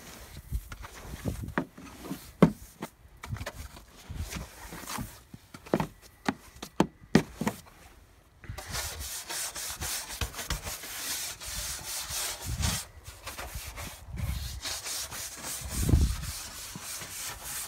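Snow being cleared off a car by hand: irregular knocks and scrapes at first, then from about eight seconds a steady brushing, scraping hiss, with a low thump near the end.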